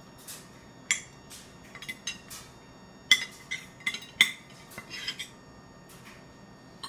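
A ceramic bowl clinking and knocking on a high-chair tray as a toddler eats from it by hand: a scattered run of sharp clinks, each with a brief ring, the loudest about three and four seconds in.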